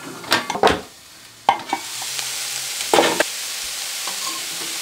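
A slotted spoon and metal pan lid clink a couple of times. About a second and a half in, a steady sizzle starts: chicken, cabbage, carrot and broccoli frying in the open pan. A single spoon stroke scrapes through the food about three seconds in.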